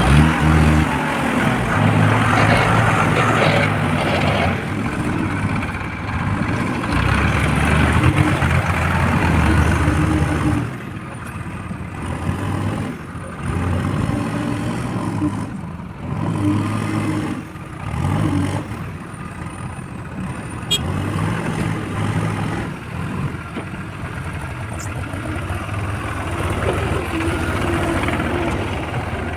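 JCB 4DX backhoe loader's diesel engine working under load. It runs loud for about the first ten seconds, then revs up and drops back in short surges every couple of seconds.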